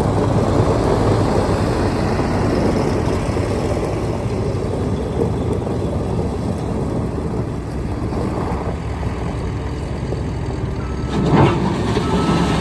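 Case SR270B skid steer loader's diesel engine running steadily, with a brief louder sound near the end.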